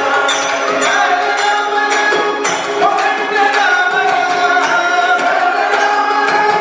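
Namasankeerthanam, South Indian devotional group singing: a male lead voice sings a gliding melody over a steady drone, kept in time by regular mridangam and hand-percussion strokes.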